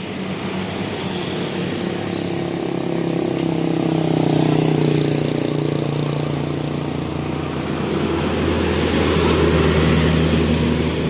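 Heavy vehicle engine running steadily in road traffic, growing louder about four seconds in and again near the end.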